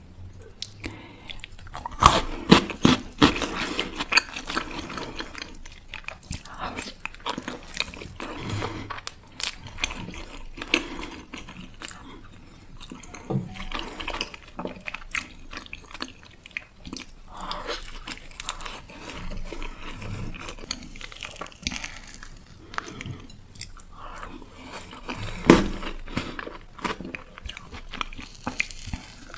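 Close-miked mukbang eating: crunchy bites and chewing, with the loudest bites about two seconds in and again near the end.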